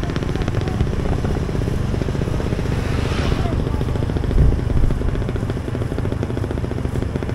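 Motorcycle engine running steadily while riding, with a brief low thump about four and a half seconds in.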